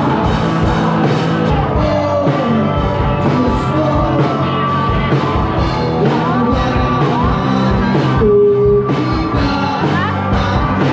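Rock band playing live with a singer, drums keeping a steady beat under sustained guitar and vocal lines.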